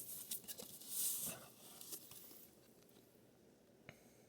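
Faint handling of plastic PSA graded-card slabs: a few light clicks and a short rustle in the first couple of seconds, then it goes quiet.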